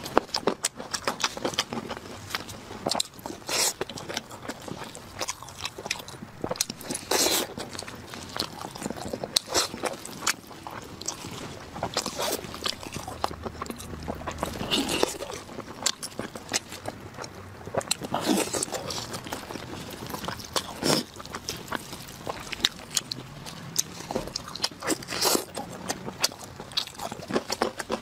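Close-miked eating: a person chewing and biting pieces of glazed roast meat, many irregular sharp clicks and crunches, with the meat torn apart by gloved hands.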